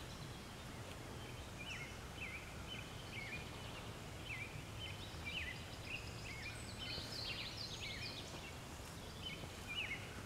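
Birds calling and singing, a long run of short, quick chirps with bending pitch, over a low, steady background noise.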